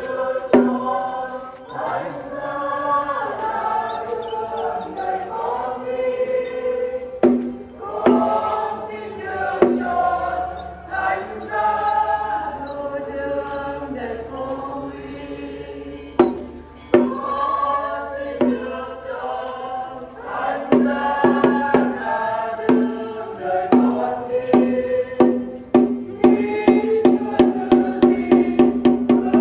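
Group of voices singing a hymn in chorus, with sharp percussive strokes in the music. Near the end the strokes quicken to a steady beat of about four or five a second.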